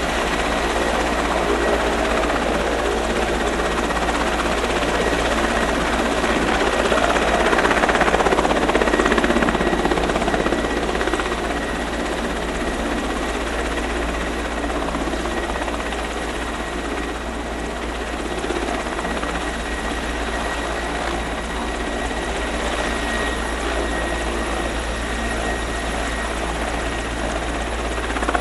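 Helicopter running close by with its rotor turning: a loud, steady din with a deep rotor thrum and a thin high whine, swelling a little about eight seconds in.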